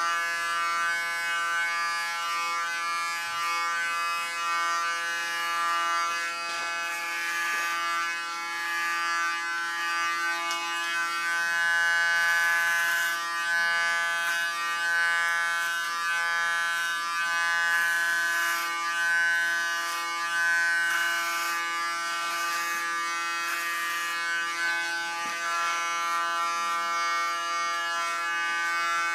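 Electric hair clipper with a comb guard running with a steady hum. Over and over it gives a brief hiss as the blades cut through short hair on each stroke.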